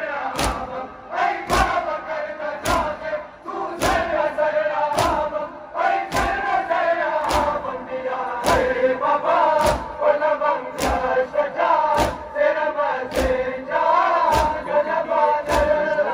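Crowd of mourners chanting a noha in unison, with a sharp slap about once a second in time with it, the steady beat of matam (chest-beating).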